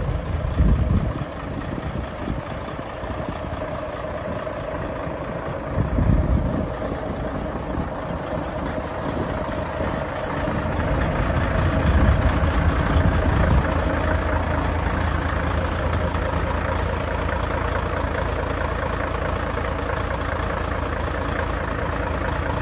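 Mercedes-Benz Actros 1840 MP1 tractor unit's V6 diesel idling steadily. A few louder low rumbling gusts come about a second in, near six seconds, and around twelve seconds.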